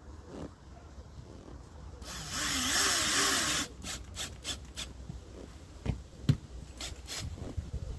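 Power drill running for about a second and a half, its motor pitch wavering, followed by a series of light clicks and knocks.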